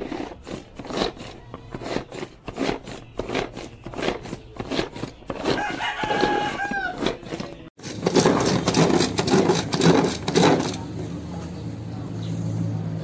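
Electric food chopper running, its spinning blades setting off a rapid, irregular clatter in the plastic bowl, with a steady low motor hum near the end. A rooster crows once in the background about six seconds in.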